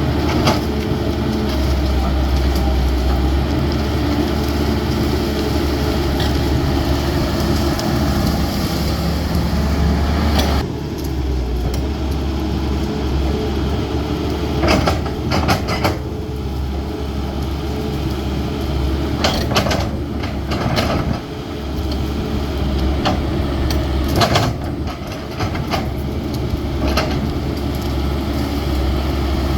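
CAT 320D excavator's diesel engine running steadily while working, with several short sharp knocks or snaps in the second half, such as the bucket striking or branches breaking.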